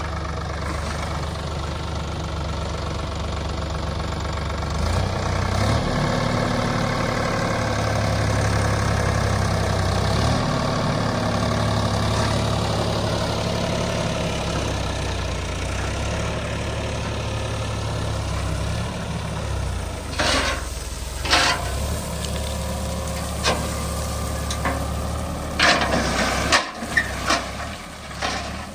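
Diesel engine of a backhoe or tractor running steadily, its note shifting a couple of times as the load changes. In the last third come several sharp knocks and clatters.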